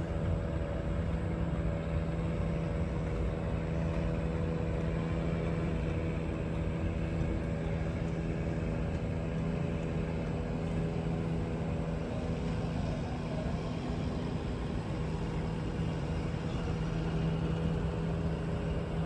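A steady engine or motor drone running at an unchanging speed, a low hum with overtones over a low rumble.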